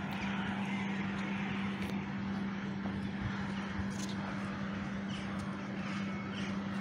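A steady vehicle hum: one constant low tone held under an even hiss, with a few faint clicks.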